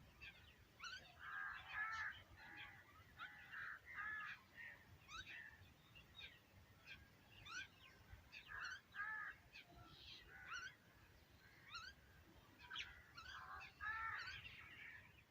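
Birds calling: a mix of short, harsh caw-like calls repeated every second or so and many quick, sharp chirps, faint throughout.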